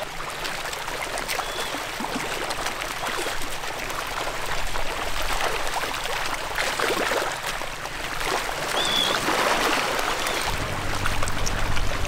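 Lagoon water splashing and trickling steadily, with a few short, high bird calls from the flock over the top, the clearest about nine seconds in.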